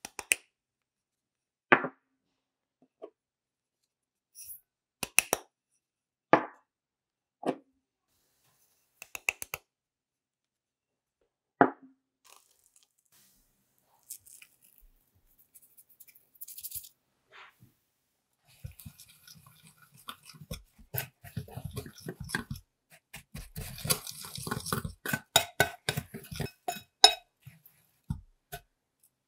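A few separate sharp taps and clinks as small bowls of dry ingredients are tipped into a glass bowl. About eighteen seconds in, a wire whisk starts stirring the dry almond powder, sugar and flour, with rapid scraping and clinking against the glass for about ten seconds.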